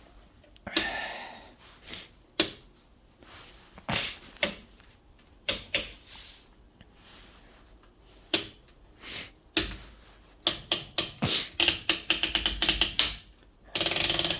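Clicks of an oscilloscope's front-panel rotary switches and knobs being turned: scattered single clicks, then a quick run of detent clicks as a switch is turned through several positions, and a short scraping rustle near the end.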